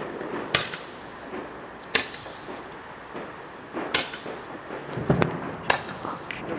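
Fireworks banging: about six sharp cracks a second or so apart, several trailing off in a short echo.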